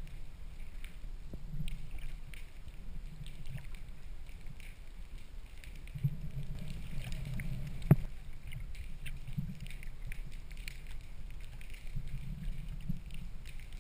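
Muffled underwater noise from a camera held underwater: a low rumble that swells from about 6 seconds in, scattered faint clicks, and one sharp knock just before 8 seconds in.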